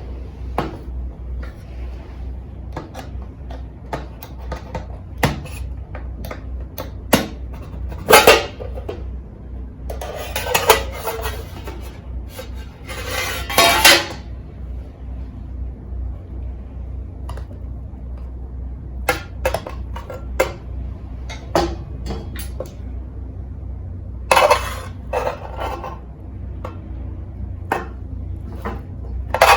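Metal cutlery clinking and scraping against an aluminium mess tin: many short clicks, with several longer scrapes about 8, 10 to 14 and 24 to 26 seconds in. A steady low hum runs underneath.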